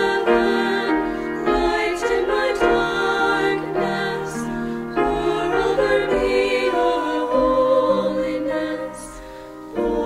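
A vocal trio singing a slow Christmas song in harmony, with sustained notes held with vibrato over instrumental accompaniment. The music drops in level about a second before the end.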